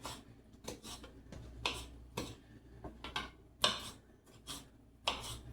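Scattered light clicks and short rustles of paper towel being handled as wet chopped green pepper is laid on it to dry.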